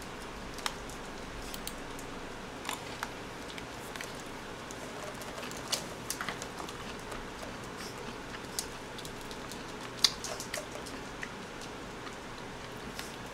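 Quiet room tone with a steady low hiss and a few faint, scattered clicks and taps.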